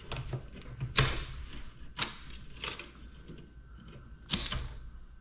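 Irregular sharp clicks and knocks of computer parts being handled and pulled apart, with the loudest knock near the end.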